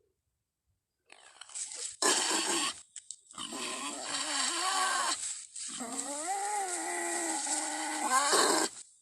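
Made-up creature sound effect for Doedicurus, the extinct giant armoured armadillo: a short loud animal call about two seconds in, then two long calls whose pitch wavers up and down. The start is silent.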